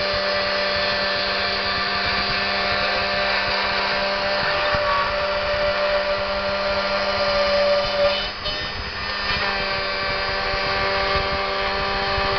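CNC router spindle running with its end mill milling a metal sheet: a steady motor whine over the hiss of cutting, with a brief change in the sound about eight seconds in.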